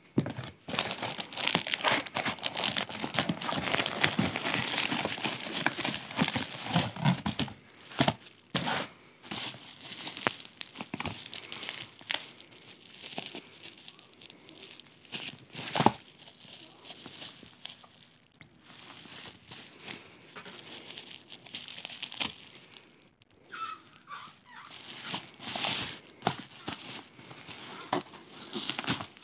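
A cardboard parcel box being torn and pulled open, with packing tape ripping and cardboard rustling steadily for the first several seconds. After that comes intermittent crinkling and crackling of plastic bubble wrap as it is handled and unwrapped.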